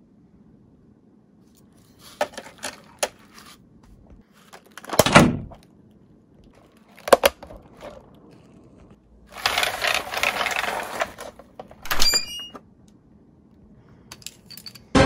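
Die-cast toy cars and a plastic toy carrier truck being handled: a few light clicks, then a louder knock about five seconds in and another click about two seconds later. Near the middle a rattling scrape lasts about two seconds, and about twelve seconds in a click comes with a brief ring.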